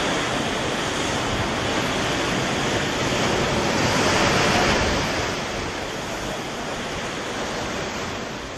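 Wind-driven surf washing and breaking over shoreline rocks, a steady rush of water that swells loudest about four seconds in, with strong wind blowing.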